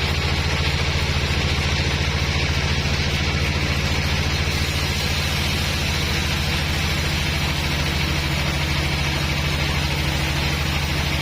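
Engine of a sawmill band saw running steadily at an even speed, with a constant hiss over it.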